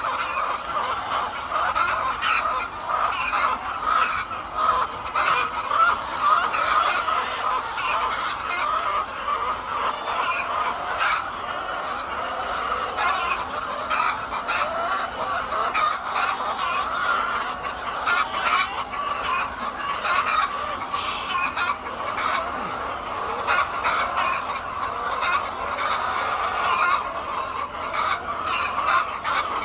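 A large flock of chickens clucking and calling over one another in a dense, continuous chorus, with many short sharp calls scattered through it.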